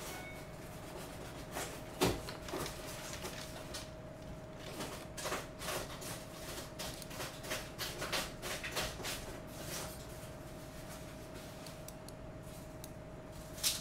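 Laptop keyboard being typed on: irregular runs of short key clicks, thickest in the middle, with one louder knock about two seconds in, over a steady faint hum.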